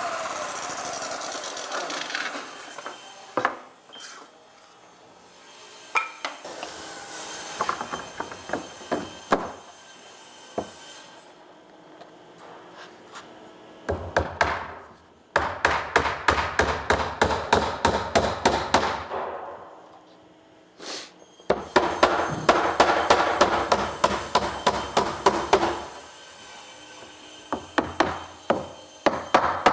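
A miter saw winding down in the first couple of seconds, then scattered knocks as pine boards are handled. From about halfway in, a hammer driving nails into tongue-and-groove eastern white pine boarding in two long runs of quick, even blows, about three a second, with another run starting near the end.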